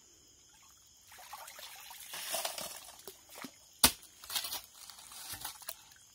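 Muddy water splashing and trickling in a flooded dig pit as hands work the gravel under the water, in irregular bursts starting about a second in. One sharp knock near the middle is the loudest sound.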